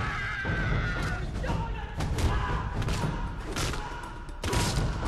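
Movie fight sound effects: a run of sharp, hard hits as punches and kicks land, about five over a few seconds, over a shout or music score.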